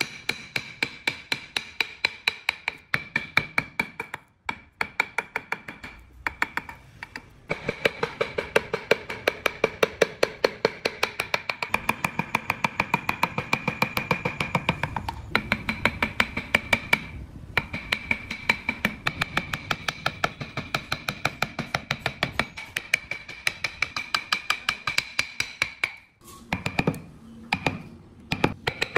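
Wood chisel being driven into Fokienia wood by rapid, even taps, about five a second, with short breaks. A steady high-pitched tone sounds underneath.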